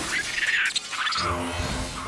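Cartoon crash sound effects of shattering, scattering debris, dying away as music with held notes comes in about a second in.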